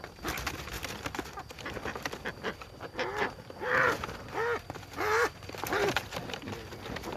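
Ducks quacking: a run of about five quacks in the middle, over scattered rustling and clicking.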